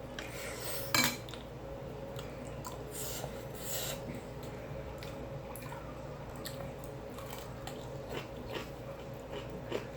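Eating from a bowl: a utensil clinking and scraping against the dish, with chewing between. One sharper clink comes about a second in, over a steady low hum.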